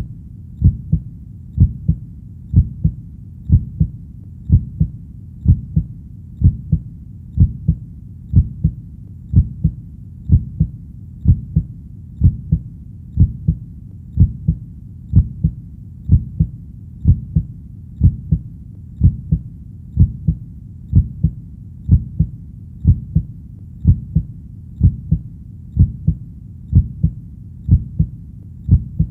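Slow, steady heartbeat, each beat a low double thump (lub-dub), repeating about once a second.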